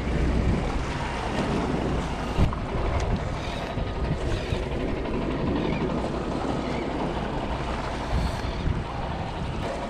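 Steady wind rumbling on the microphone, with small waves washing against the jetty rocks. There is one sharp click about two and a half seconds in.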